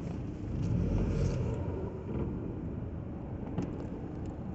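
Low rumble of a car driving, heard from inside the cabin, swelling briefly about a second in.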